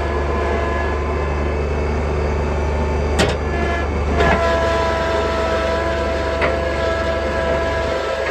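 Tractor engine running steadily while pulling a box blade across an infield. About four seconds in its tone shifts, and a few sharp knocks from the implement come through.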